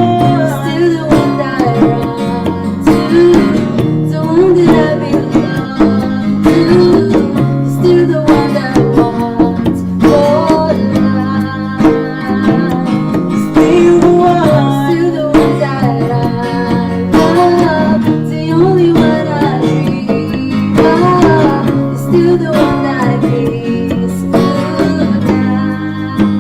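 Acoustic guitar strummed while a voice sings a cover song in a soundcheck duet.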